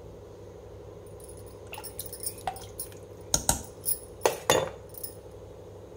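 A spoon knocking and clinking several times against an aluminium pressure cooker of soup as salt is added and stirred in, over a steady low hum.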